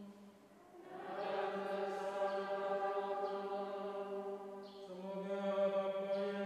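Slow church music in long held notes, moving to a new note about a second in and again near five seconds.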